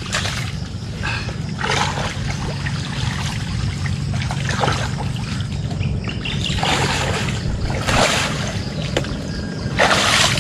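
Water splashing and trickling in irregular bursts over a steady low hum.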